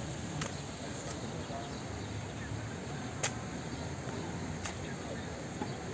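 Outdoor crowd ambience: a steady hum with faint distant voices, broken by a few sharp clicks, the loudest about three seconds in.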